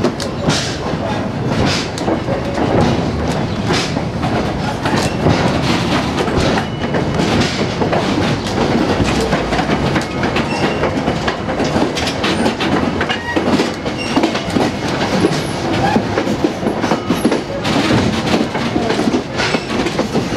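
Vintage railroad passenger car rolling on the track behind a steam locomotive: a steady, loud rumble of the running gear, with frequent clicks and knocks from the wheels and the car.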